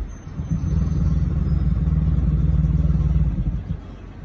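Loud, steady low drone from the transmission area of a 2008 Audi Q7 held in drive while the gearbox fails to engage. It falls away about three and a half seconds in.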